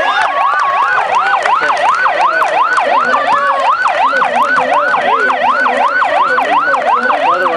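A siren yelping without a break, its pitch sweeping up and snapping back about three times a second.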